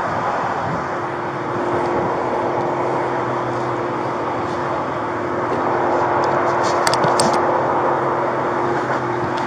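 A steady vehicle engine hum under close rustling of clothing, as a pat-down is done right against a body camera's microphone, with a few light clicks about seven seconds in.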